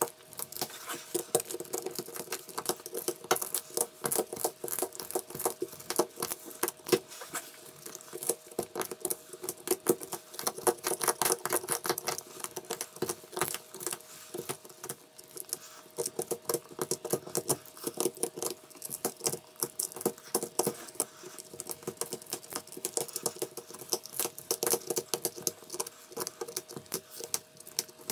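Dense, irregular clicking and scraping from small hand-tool work on the phone, running throughout, over a faint steady hum.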